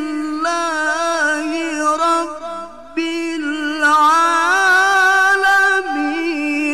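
A man reciting the Quran in the melodic tilawah style, holding long ornamented notes at a high pitch. Just after two seconds in his voice drops briefly to a quieter, lower note, then comes back on the high held pitch, louder from about four seconds in.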